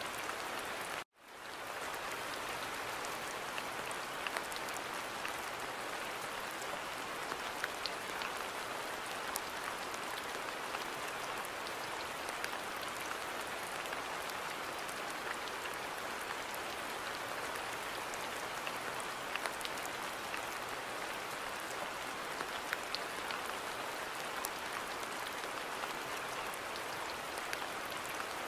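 Steady rain falling, a dense even hiss with scattered sharp drop ticks. About a second in the sound cuts out completely for a moment and fades back in.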